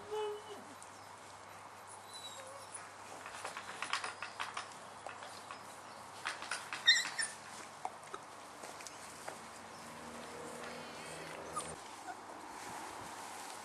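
Four-week-old Dalmatian puppies at play: a short falling whine at the start, then scattered short yips and squeaks, the loudest about seven seconds in.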